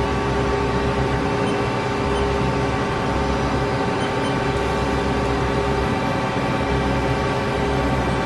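Steady hum of running shop machinery: a constant hiss with several held tones and a low rumble, unchanging throughout.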